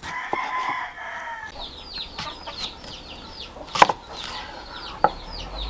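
Chickens clucking, first with a drawn-out call, then with a quick run of short, high, falling chirps about three a second. A few sharp knocks of a knife on a wooden cutting board come through, the loudest just before four seconds in.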